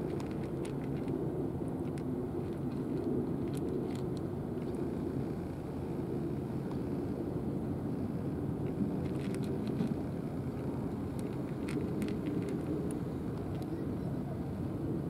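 Steady low rumble of outdoor background noise with a faint hum, with faint light clicks scattered through it.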